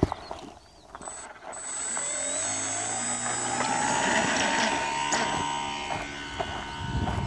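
Electric motor and propeller of a small foam RC plane spinning up, its whine rising in pitch over a couple of seconds and then holding steady as the plane runs off down the track at full throttle.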